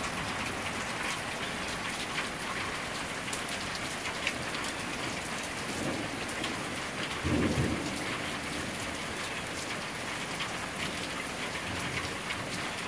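Steady rain falling and pattering on surfaces, with many fine drop ticks. A brief low rumble stands out about seven seconds in.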